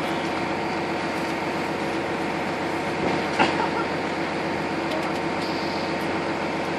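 Steady hum of a boat's engine running, with a single short knock about three and a half seconds in.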